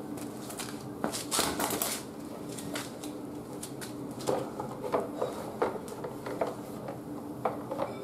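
Plastic front mudguard of a Honda Africa Twin being handled and offered up to the front fork: scattered light clicks and knocks of plastic against the fork, with a rustle about a second in and a faint steady hum underneath.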